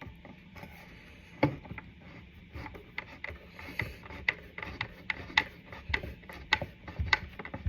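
Hand screwdriver driving a screw into a wooden stand: a single knock about a second and a half in, then a run of short, regular clicks, two to three a second.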